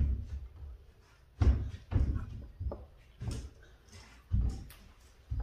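About five dull thumps and knocks, spaced a second or so apart, from hands and small objects bumping on a tabletop while planet balls are being painted.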